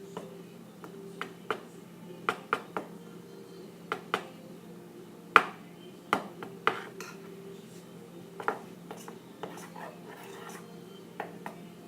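A utensil knocking and scraping against a mixing bowl as a thick batter of flour, dish soap and water is stirred: irregular clinks, now and then a louder knock. A steady low hum runs underneath.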